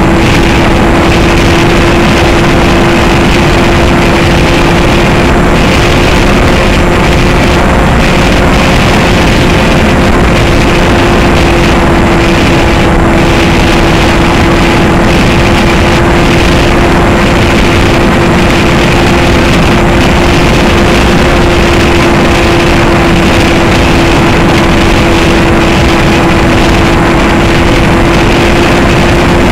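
Homemade foam RC plane's motor and propeller in flight, heard from its onboard camera: a loud, steady drone holding one pitch, with wind rushing over the microphone.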